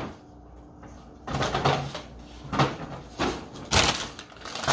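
McDonald's paper delivery bag rustling and crinkling in several short bursts as a hand rummages through it.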